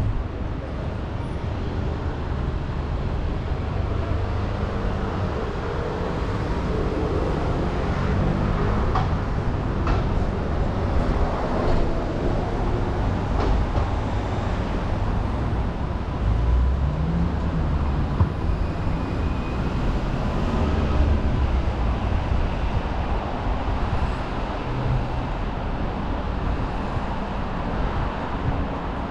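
City street traffic: motor vehicle engines running and passing in a steady low rumble, with one engine's pitch rising and falling about seventeen seconds in.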